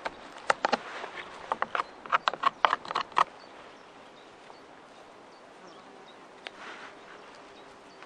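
Knife carving a notch into a wooden pole: a quick, irregular series of sharp cracks and clicks as the blade bites into the wood, lasting about three seconds. Then quiet outdoor ambience with a soft rustle of handling near the end.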